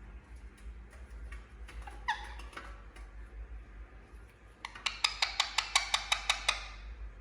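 Indian ringneck parrot calling: a short bending call about two seconds in, then a rapid run of about a dozen sharp, high notes at roughly six a second. Faint regular ticking runs underneath.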